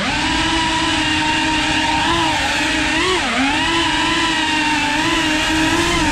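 Tiny whoop FPV drone's motors and ducted propellers buzzing at a steady high pitch, heard from the camera on board; the pitch dips briefly about three seconds in as the throttle eases, then comes back up.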